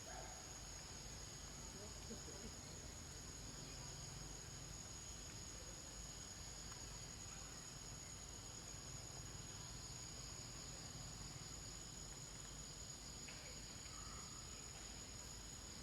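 Steady, high-pitched chorus of insects, a continuous shrill drone that does not change, with a few faint brief calls over it.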